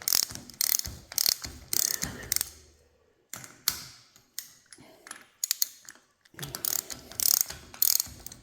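Ratchet wrench clicking in short bursts of quick strokes with brief pauses, working the bolts of a tractor hydraulic pump.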